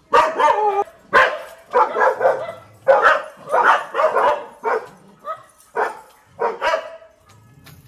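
A dog barking over and over, about a dozen loud barks roughly half a second apart, dying out shortly before the end.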